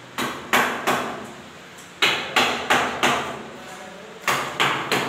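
A hammer striking the wooden batten framing of a wall, about ten sharp blows in three quick runs of three or four, with short pauses between the runs.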